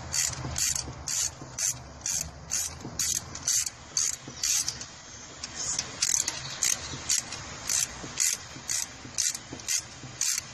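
Hand ratchet wrench backing out bolts on a valve spring compressor tool bolted to the cylinder head: an even run of clicking ratchet strokes, about two a second, with a short pause about halfway.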